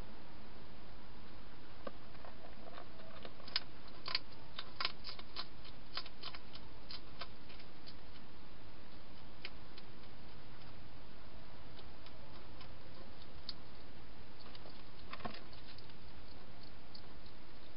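Wild hedgehog inside a plastic feeding box crunching dry food: a quick run of sharp crunches and clicks from about three and a half to seven and a half seconds in, then a few scattered ones, over a steady background hiss.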